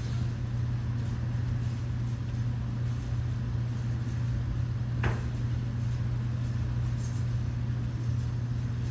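Steady low-pitched hum with a faint noisy background, and a single short tick about five seconds in.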